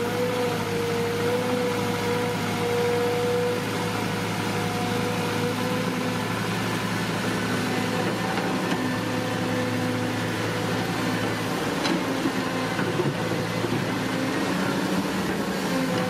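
Huina RC excavator running: a steady whine and hum from its small electric motors and gearboxes as the boom lifts and the upper body swings.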